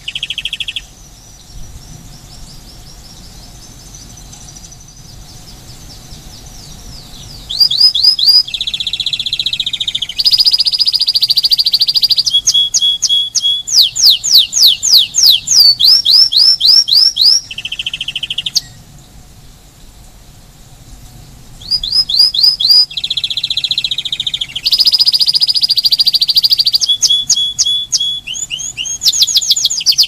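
Spanish timbrado canary singing in long phrases of rapid repeated notes and rolls. The song is soft for the first several seconds, turns loud about seven seconds in, and breaks off for about three seconds past the middle before resuming.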